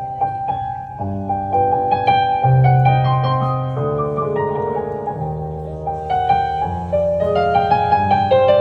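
Background piano music: a gentle melody of single notes over sustained low chords.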